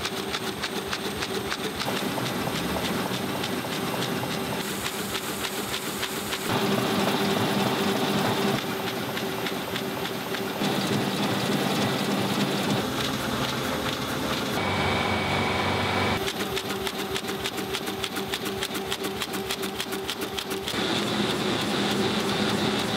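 Four-colour sheet-fed offset litho printing press running: a fast, even mechanical clatter over a steady hum. Its character shifts abruptly every few seconds.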